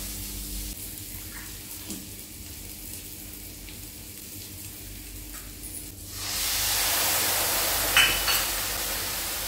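Onion going into hot oil in a kadai: quiet at first with a few small taps, then a loud sizzle starts suddenly about six seconds in and keeps going, with a sharp clink of the spatula about two seconds later.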